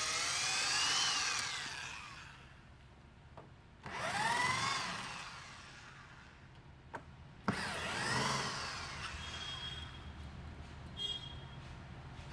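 A power drill backing out the bolts that hold a sofa's reclining mechanism to its wooden frame, in three short runs: one at the start, one about four seconds in and one about seven and a half seconds in. Each run speeds up and winds down again.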